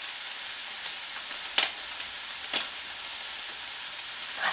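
Chicken and ham pieces frying in a skillet with a steady sizzle. Two short clicks come about a second apart midway.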